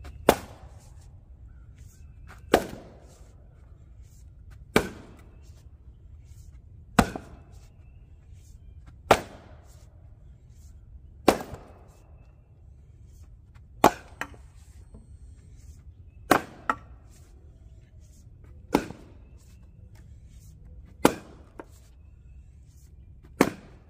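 Splitting axe striking firewood rounds, a sharp whack about every two and a half seconds, eleven strikes in all. A few strikes are followed at once by a lighter second knock.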